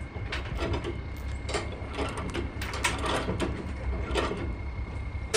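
Ratchet chain binder being worked by hand to tension a transport chain, its pawl clicking in a run of uneven strokes.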